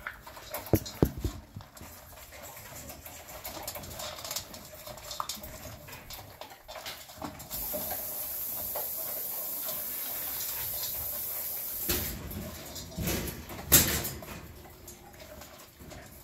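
American bully puppies eating dry kibble from a metal pan: crunching, with kibble and muzzles clicking and clanking against the pan. A steady hiss runs for about four seconds midway, and a sharp knock on the pan or crate stands out near the end.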